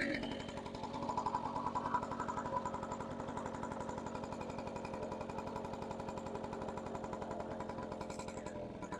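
1977 Honda Express NC50's 49cc two-stroke single-cylinder engine running steadily while it warms up, a fast, even stream of exhaust pulses. The owner thinks it needs some tuning.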